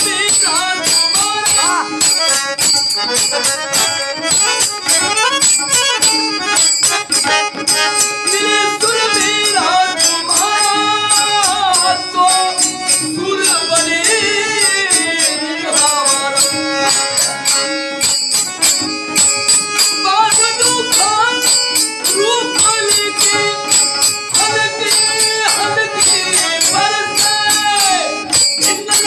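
Male voice singing a Marathi devotional folk song with gliding, ornamented phrases over a steady jingling percussion beat.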